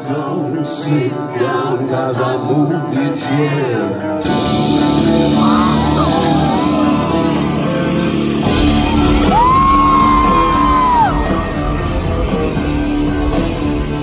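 Rock band playing live, with singing: more instruments come in about four seconds in, and the full band with drums and bass about eight seconds in.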